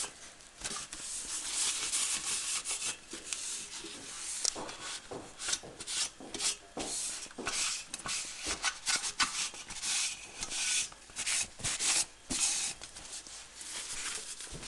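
A cloth rubbing and wiping over the fine mesh air filter of a cold-fog generator to dry it after washing: irregular rubbing strokes, one after another.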